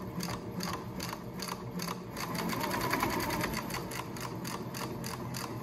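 Yamata FY-335A walking-foot cylinder-bed industrial sewing machine stitching fabric, a steady, even mechanical clatter of stitches that grows a little louder around the middle.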